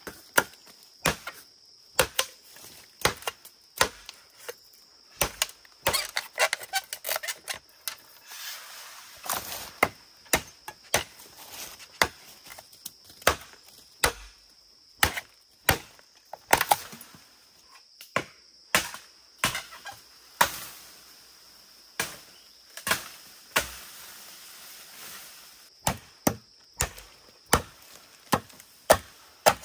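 Repeated chopping: sharp blade strikes on wood, about one to two a second, with short irregular pauses and a patch of lighter, quicker taps partway through.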